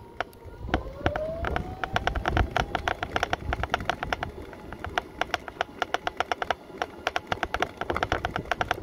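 Mobility scooter's electric motor whining as it runs along a tarmac lane. The whine rises in pitch about a second in as it picks up speed, then holds steady, over a fast, irregular clicking rattle.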